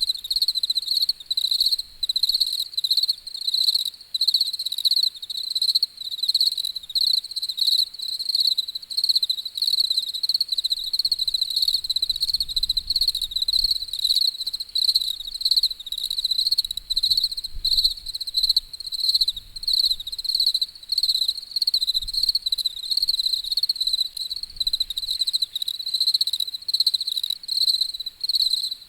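Cricket chirping, high-pitched, in a steady run of evenly repeated pulses.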